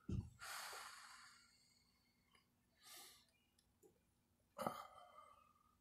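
Quiet breathing close to the microphone. A long exhale just after a low bump near the start fades over about a second, with shorter breaths about three and four and a half seconds in.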